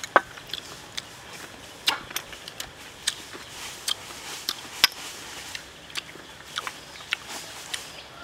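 Metal spoon clicking and scraping against grilled shellfish shells as the meat is scooped out: a string of irregular sharp taps, about one or two a second.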